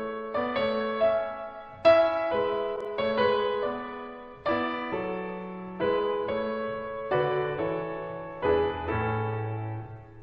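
Background piano music: notes and chords struck about once a second, each fading before the next.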